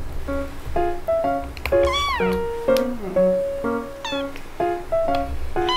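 Very young kitten meowing three times, high mews that fall in pitch, the first about two seconds in and the longest. Background music of short, evenly paced plucked notes plays throughout.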